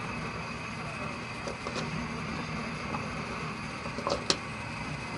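Steady rushing noise of a pot of snails boiling on a gas burner, with two light knocks about four seconds in as chunks of squash are dropped into the pot.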